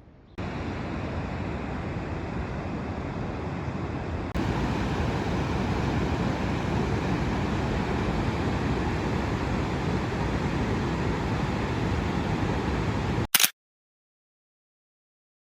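Steady, loud rush of water from the Arno running high after heavy rain, near the old mill. It grows louder about four seconds in, then cuts off with a sharp click near the end, leaving silence.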